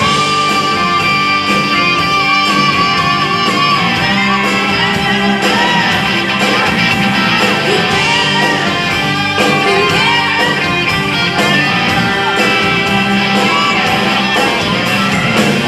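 Live rock band playing: electric guitar over a drum kit, with a singing voice.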